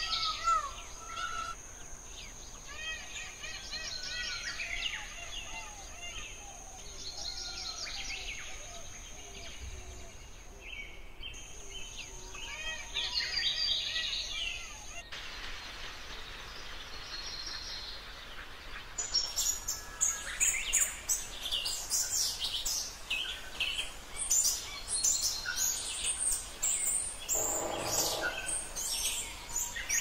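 Several birds chirping, trilling and singing in quick, overlapping phrases, with a steady high-pitched tone under them for the first fifteen seconds. The mix of calls changes abruptly a few times, as spliced recordings do.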